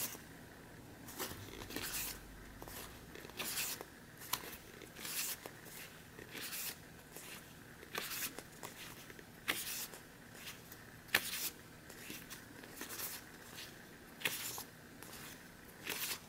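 Pages of a paper booklet being turned by hand in a quick flip-through, each turn a short papery swish, coming irregularly about once a second.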